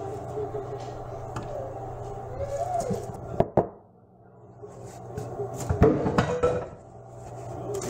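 Kitchen handling noises over a steady low hum: two sharp knocks about three and a half seconds in, then a burst of clattering and rustling around six seconds, as things are handled at the counter.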